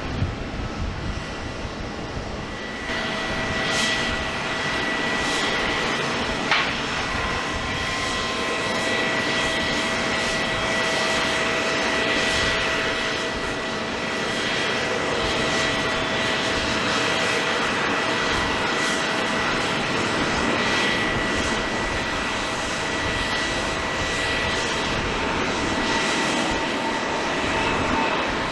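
Jet airliner engines running, a loud steady rush with a steady high whine over it; the sound changes about three seconds in, after which a Boeing 787-10's engines are heard.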